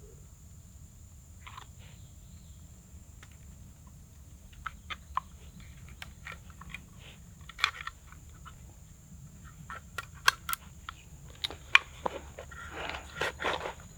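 A person moving through undergrowth: irregular crackles and snaps that start a few seconds in and come faster toward the end.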